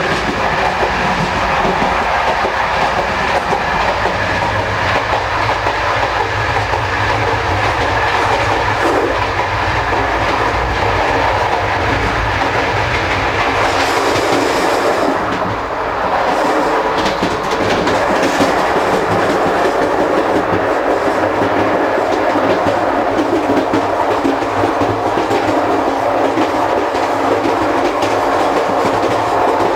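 Running noise heard from inside the gangway between CP Corail passenger coaches at speed: a steady loud rumble with the clatter of the wheels on the track, and a brief hiss about halfway through.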